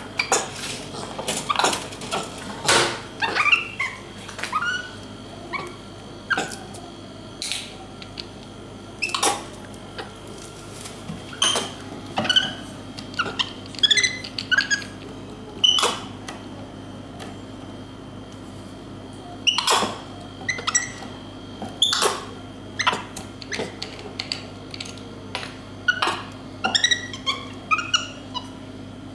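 Capuchin monkey giving short, high squeaky chirps, among sharp clicks and knocks of a plastic drink bottle being handled and opened on a table. A steady low hum runs underneath.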